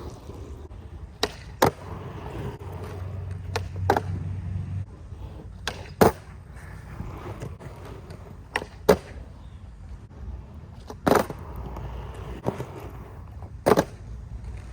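Skateboard rolling, a steady low rumble of the wheels, broken by sharp wooden clacks of the board, several coming in quick pairs about a third of a second apart.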